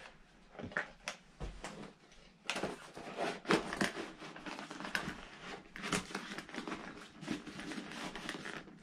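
Rustling, scuffing and irregular light knocks as a padded liner is pushed and worked into an inline skate's plastic shell, busiest in the middle of the stretch.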